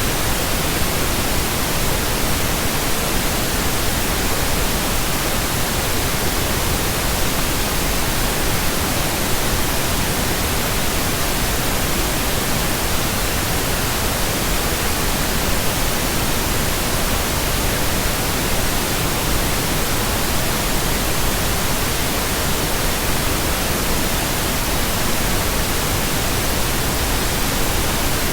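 Steady electronically generated pink noise: an even, unchanging hiss spread across all pitches, with no tones or breaks.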